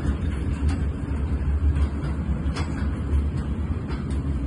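Loaded Falns coal hopper wagons of a heavy freight train rolling slowly past, their wheels rumbling low and steadily on the rails, with a few sharp clicks.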